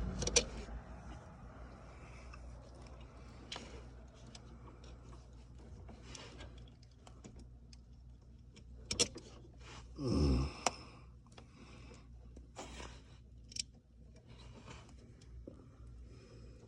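Hands fumbling wires and terminals onto a winch solenoid: scattered small clicks, taps and rustles, with a short low grunt that drops in pitch about ten seconds in.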